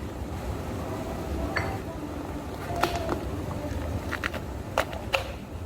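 A handful of sharp clinks of glassware and utensils being handled at a cafe counter, the loudest about three and five seconds in, over a steady low rumble of background hum.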